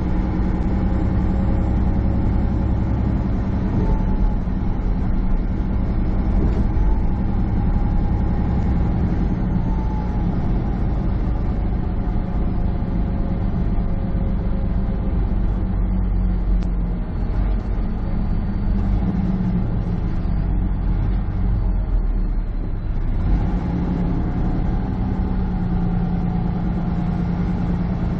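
Semi truck's diesel engine and road noise heard from inside the cab while cruising, a steady drone with an engine note that drifts slightly in pitch.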